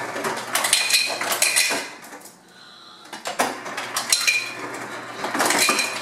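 Ice cubes dropping and clattering into a drinking glass from a refrigerator door's ice dispenser, in several bursts of rapid clinks with short pauses between them.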